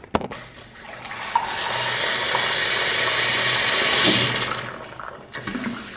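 Boiling water pouring from a boiling-water kitchen tap into a ceramic mug, a steady hiss that builds for about three seconds and then fades away, after a couple of clicks as the mug is handled at the start.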